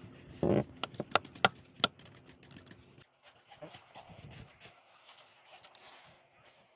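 Stiff-bristled hand brush sweeping over a textured fibreglass non-skid deck: scratchy brushing strokes, with a quick run of sharp clicks and knocks in the first two seconds, then softer, fainter brushing.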